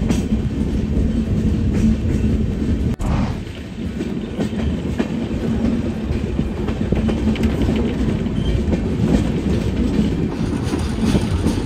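Indian Railways passenger train running along the track, heard from an open coach door: a steady rumble of wheels on rails with clickety-clack. The sound drops out for an instant about three seconds in.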